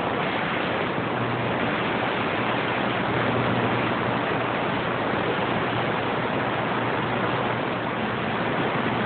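Steady hiss of static from a CB radio receiver with the squelch open, with a faint low hum underneath; no readable station comes through the noise.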